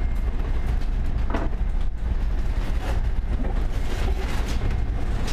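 Steady low drone of a fishing boat's engine running under way, heard from inside the galley. Over it come a few short rustles and scrapes as stale bread is torn apart by hand in a stainless steel sink.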